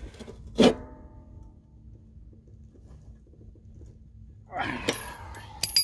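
Ratchet wrench tightening the blade nut on a riding-mower deck spindle, the blade braced against a brick. A loud ringing metal clank about half a second in, then soft ratchet clicks, and sharp metallic clinks near the end.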